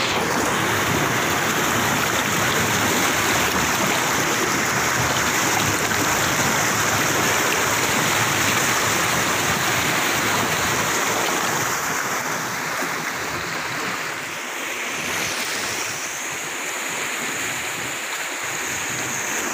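Muddy flash-flood water rushing and churning through a narrow channel, a loud, steady roar of water. It drops a little in level after about twelve seconds.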